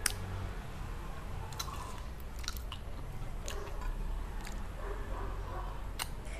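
Close-up chewing and crunching of crispy fried onion rings, with sharp crunches scattered throughout. The loudest crunch comes right at the start and another about six seconds in, over a low steady hum.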